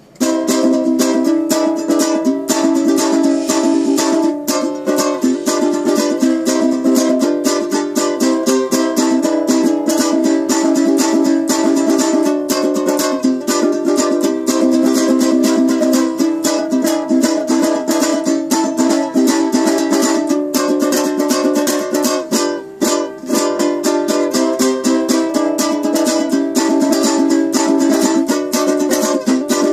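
A handmade steampunk ukulele being played in quick, continuous strummed chords, with a brief break about three-quarters of the way through.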